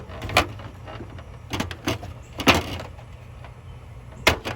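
Pots and utensils clattering as potatoes go into a pot to boil: about six short, sharp knocks and clanks, the loudest about two and a half seconds in, over a steady low hum.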